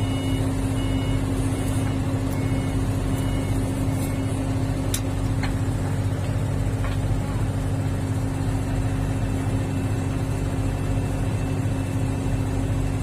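Truck engine idling steadily, a constant low hum, with a single sharp click about five seconds in.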